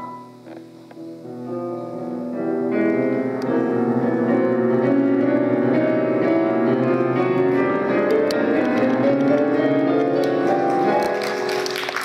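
Jazz piano improvisation on a Casio Celviano digital piano. It starts softly about a second in, swells into full sustained chords, and eases off near the end.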